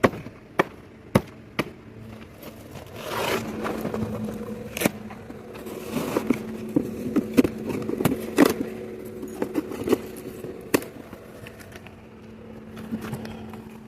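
Sharp knocks and clatter of a hard object being handled and shifted, with several quick knocks in the first two seconds. A steady low hum comes in about three seconds in and carries on under the knocks.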